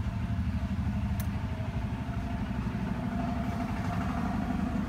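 Steady low mechanical hum of a running motor, with a single short click about a second in.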